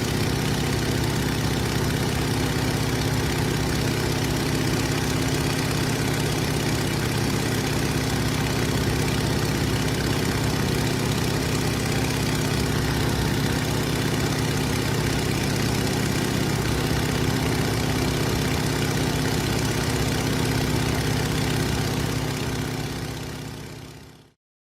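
Stearman biplane's radial engine running steadily in cruise flight, heard from the open cockpit with a strong rush of wind and propeller noise over a low engine drone. The sound fades out near the end.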